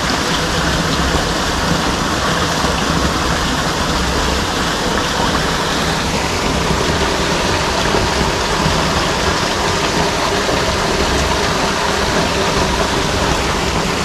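Small waterfall on a mountain river: a loud, steady rush of falling and splashing water.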